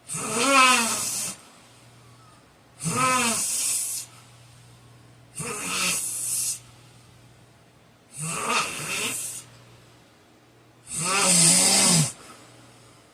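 A man snoring heavily: five loud snores about every two and a half to three seconds, each with a pitch that rises and falls.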